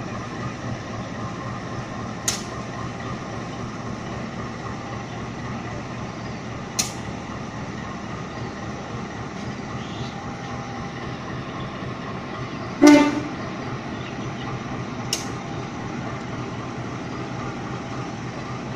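CC 201 diesel-electric locomotive (a GE U18C) idling with a steady engine hum as it is turned on a turntable. Four sharp knocks sound over it, the loudest about two-thirds of the way through.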